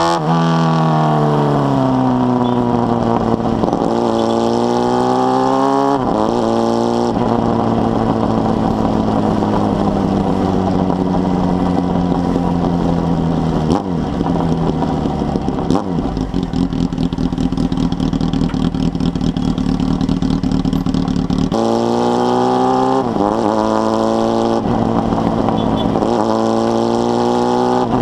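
Carbureted inline-four engine of a 2005 Honda Hornet running through its 4-into-1 exhaust as the bike is ridden. It revs up through the gears, with sharp drops in pitch at the shifts near the start and again near the end, and through the long middle stretch the pitch falls slowly and steadily.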